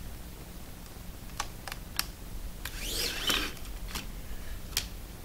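A clear plastic cash envelope in a ring binder being handled on a tabletop: about six sharp clicks and taps, with a short plastic rustle about three seconds in.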